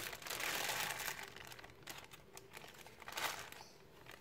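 Clear plastic packing bag crinkling as it is handled and pulled off a multimeter: a dense rustle for about the first second, then scattered crackles with one more brief burst about three seconds in.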